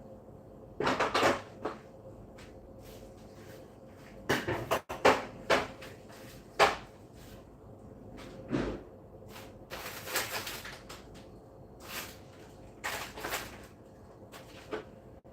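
Irregular knocks, clunks and short scrapes of refrigerator parts and contents being handled and moved during cleaning: about a dozen separate bumps spread unevenly through the stretch.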